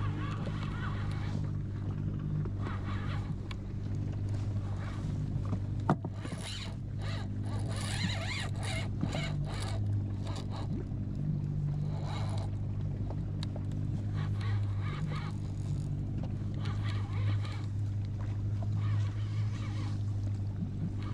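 Steady low hum of an idling boat motor, with irregular bursts of rasping rattle as a spinning reel is cranked during a fight with a fish, and one sharp knock about six seconds in.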